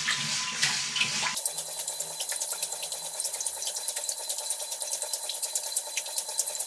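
Water sloshing and splashing in a glass tank as a LEGO wave-generator paddle drives waves onto a sand beach. About a second and a half in, the sound changes abruptly to a fizzing, crackling wash of many small splashes.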